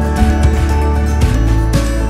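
Background music with a deep, steady bass.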